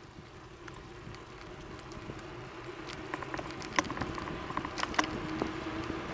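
Bicycle rolling along asphalt, heard from a handlebar-mounted camera: a low rumble of tyres and wind, a few sharp ticks and rattles, and a faint steady hum that comes in about halfway through.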